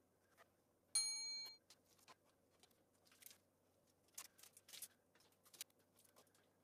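A short bell-like ding about a second in, the on-screen subscribe-button sound effect. Then a few faint scratchy strokes and clicks of a utility knife scoring along a steel ruler.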